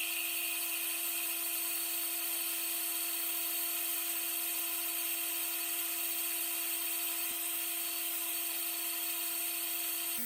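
Small electric power tool running steadily at constant speed, with an even whine.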